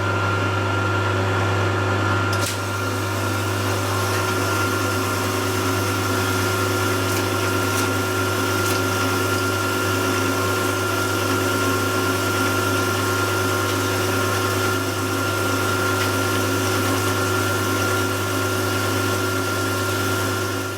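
Milling machine running steadily with its flood coolant, a carbide end mill plunge-cutting the corners of a metal part; a steady hum with a few constant whining tones, a brighter hiss joining about two seconds in, and everything cutting off suddenly at the end.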